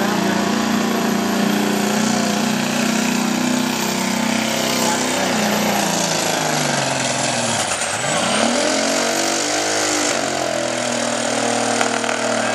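Diesel pickup truck engine running hard at full throttle while pulling a weight-transfer sled, with a high whine over it. About eight seconds in, the revs drop sharply and then climb back up.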